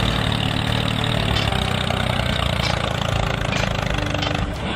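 Excavator engine idling steadily with a fast, even rumble.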